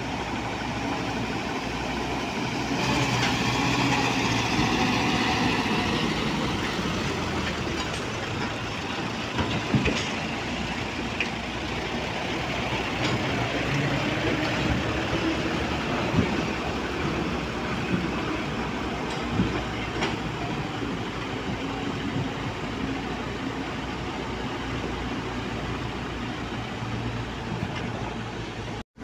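Diesel dump truck engines running steadily, growing louder about three seconds in, with a few sharp knocks now and then.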